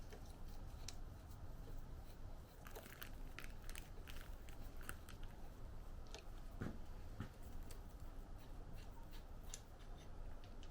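Faint, scattered small clicks and taps of small parts and hand tools being handled.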